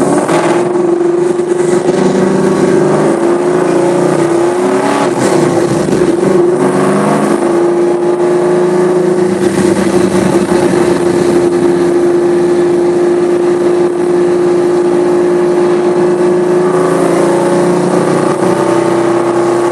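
Camaro's LQ4 6.0-litre V8 running under way. The engine note climbs over the first few seconds, breaks briefly about five to seven seconds in, then holds steady while cruising, and starts climbing again near the end.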